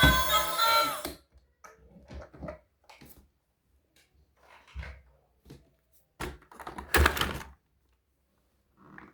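Toys and their packaging being handled: a scattering of short clicks, taps and rustles with quiet gaps between them. The loudest is a rustle about seven seconds in.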